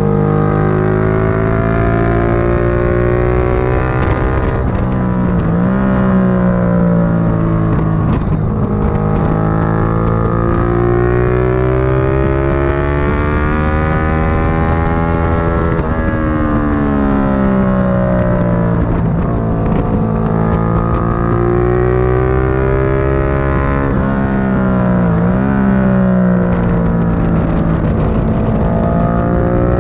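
Motorcycle engine under hard acceleration on track, its pitch climbing steadily through the gears, then dropping sharply on braking and downshifting for a corner, three times over.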